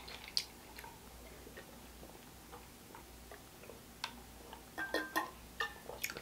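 A person drinking from a water bottle: faint mouth and swallowing clicks, quiet for most of the time, with a small cluster of clicks and a short breath near the end as the bottle comes away from the mouth.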